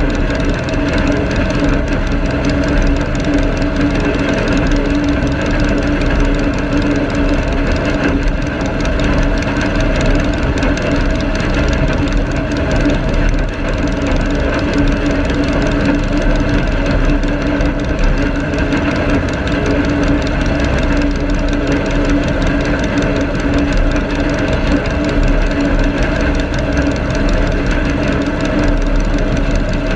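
Garden tractor engine running steadily as the tractor is driven slowly across grass, a constant drone that holds the same pitch throughout.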